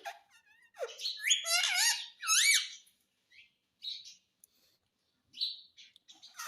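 Pet parrot calling: a burst of squawky, wavering chirps about a second in, loudest near the middle, then a few short chirps spaced a second or more apart.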